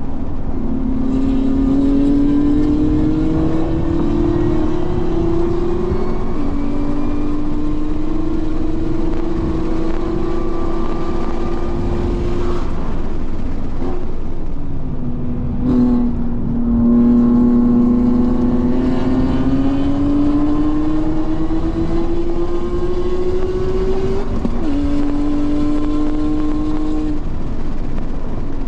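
Race car engine at hard throttle on track, its pitch climbing through the revs with a sharp drop at an upshift about six seconds in. Around the middle it lifts off, with short blips as it downshifts, then pulls hard again through another upshift and lifts near the end.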